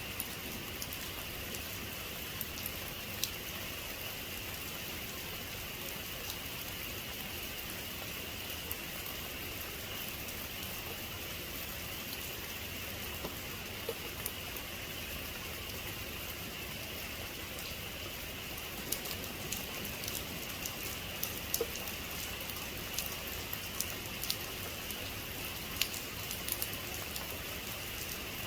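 Heavy rain falling steadily, with scattered sharp drop ticks that come more often in the second half.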